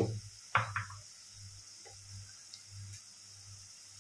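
A spoon knocks twice against the cooking pot near the start as ground masala paste is scraped in, over a faint, steady sizzle of the onion-masala frying in the pan.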